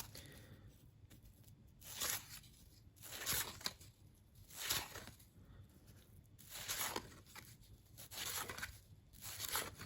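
Cardboard trading cards being handled and slid against one another: about six short, soft papery swishes, a second or so apart.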